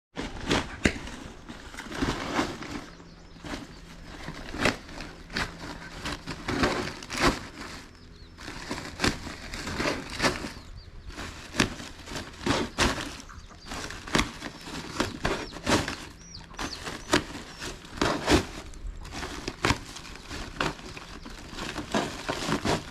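Cast nets being handled and packed into a sack: continual rustling and crinkling with irregular sharp crackles and knocks, several a second.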